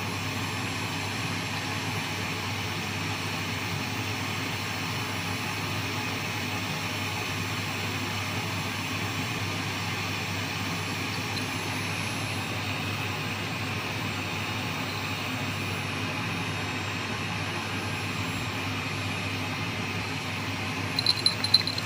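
Vacuum cleaner running steadily. Just before the end, a few sharp clicks or knocks.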